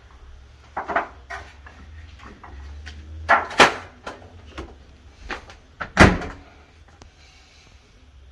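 Knocks and clicks at a microwave oven as food on a plate is set inside, then the microwave door is swung shut with a loud thump about six seconds in.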